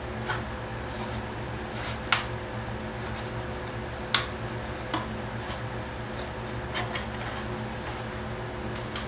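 Steady machine or electrical hum with several fixed tones, and about eight short, sharp clicks and taps over it. The loudest clicks come about two and four seconds in.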